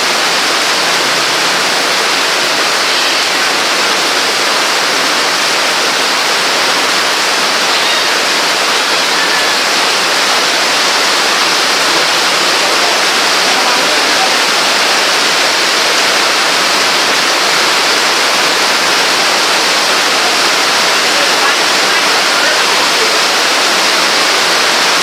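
Heavy rain falling: a loud, steady hiss.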